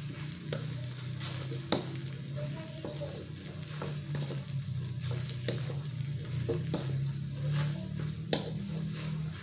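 Spatula stirring instant fried noodles and water spinach in a sizzling metal wok, with sharp clicks of the spatula against the pan about once every second or so, over a steady low hum.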